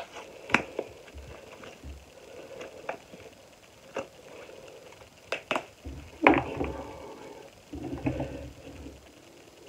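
Handling noise from putting on a hairband and pulling the hair back: scattered sharp clicks and rustles, with a louder knock about six seconds in.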